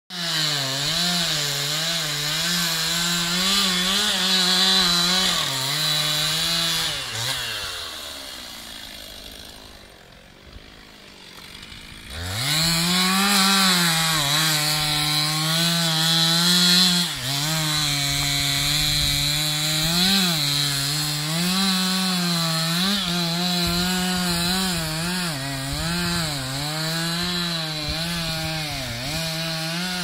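Chainsaw running at high revs, its pitch wavering up and down as it cuts into a spruce. About seven seconds in it winds down and goes faint. Around twelve seconds in it revs back up with a rising whine and carries on cutting.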